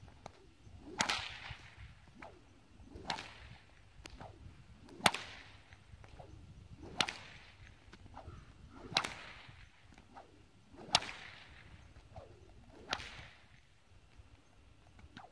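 Stock whip cracking seven times in a steady rhythm, about one sharp crack every two seconds, with the swish of the thong through the air between cracks.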